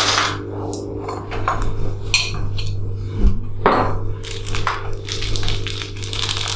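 Spoons clinking and scraping against ceramic bowls as herbal tooth powder is portioned out, with scattered clicks and knocks of tableware. A denser rustle near the end, as a plastic bag of powder is handled.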